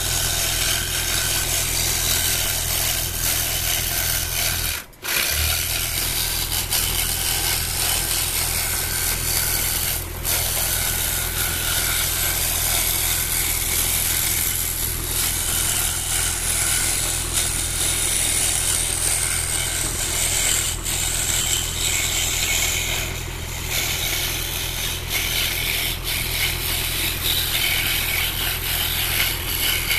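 Scroll saw running, its reverse-tooth blade cutting a fretwork pattern in thin wood: a steady rapid mechanical chatter over a low motor hum, with a momentary break about five seconds in.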